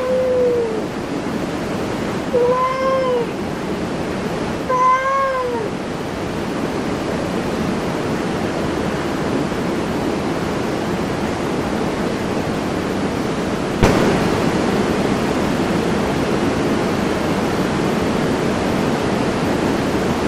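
A cat meowing three times in the first five seconds or so, each a short call that rises and falls in pitch, over a steady hiss. A single click comes about fourteen seconds in.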